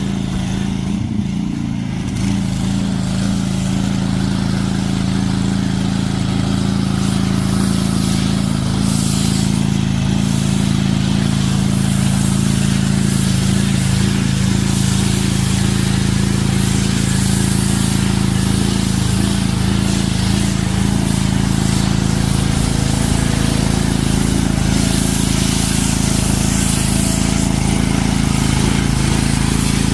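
DeWalt 3600 psi gas pressure washer engine running steadily, with the hiss of the high-pressure spray swelling and fading over it.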